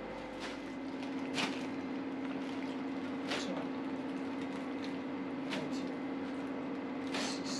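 A thin plastic bag crinkling a handful of times as pieces of raw beef are dropped into it by hand, over a steady low hum.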